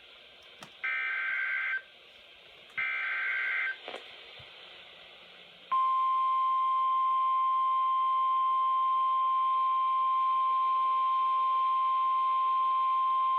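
NOAA Weather Radio alert signals. Two bursts of the SAME digital header, each about a second of rapid two-pitch data warble, are followed about six seconds in by the long, steady 1050 Hz warning alarm tone that announces a new severe thunderstorm warning.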